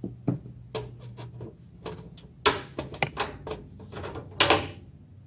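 Clicks, knocks and brief scraping as 54-watt T5 fluorescent tubes are handled and worked loose from the lamp holders of a metal fixture. A faint low hum runs under the first second or so.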